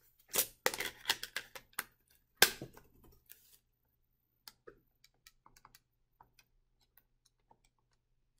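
A calculator being handled, with a few knocks in the first seconds, the loudest about two and a half seconds in, then a run of light clicks as its keys are pressed.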